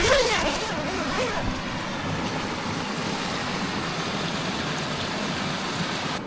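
Steady rushing of a mountain creek, with a few short falling whistle-like calls in the first second or so.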